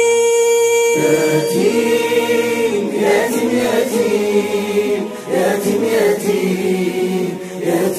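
Nasheed vocal music: a long held sung note, then from about a second in several layered voices singing wordless harmony, swelling and gliding in pitch.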